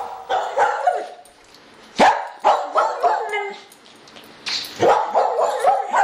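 A dog barking and yapping in three loud bursts, about two seconds apart.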